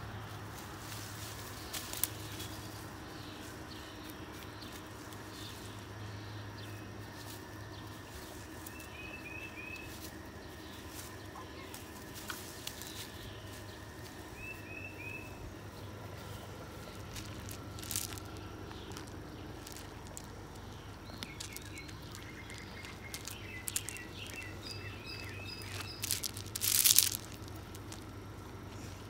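Small birds chirping in short runs of quick repeated notes over a steady low hum, with scattered rustles and clicks of leafy branches as dogs play among them. A short, louder burst of scraping noise comes near the end.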